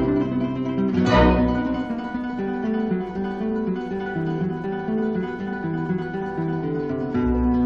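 Background music on acoustic guitar: plucked notes, with a loud strummed chord about a second in and another near the end.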